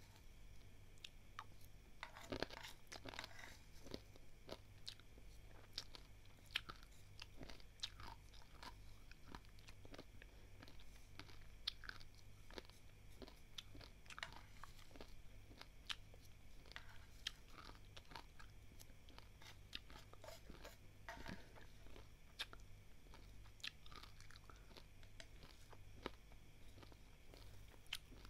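Crunching and chewing of dry, uncooked basmati rice grains that have been dry-roasted and salted. Faint, irregular crunches run throughout, with a denser cluster about two to three seconds in.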